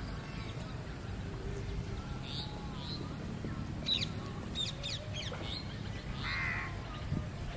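Birds calling: short high chirps and quick downward-sweeping calls in the middle, and one longer, lower call about six seconds in, over a steady low background rumble.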